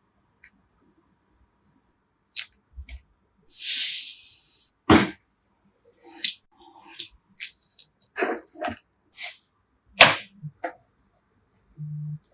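Computer parts being handled during a PC build: a run of separate clicks and knocks, a rustle lasting about a second near four seconds in, and two sharper knocks around five and ten seconds in. A short low hum comes near the end.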